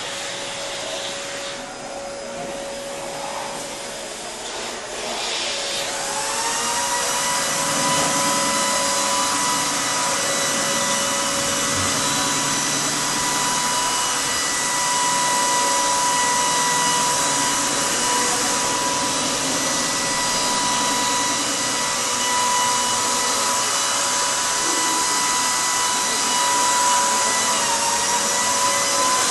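Electric motor with a fan, running with a rushing air hiss and a steady whine; it speeds up about six seconds in and then holds.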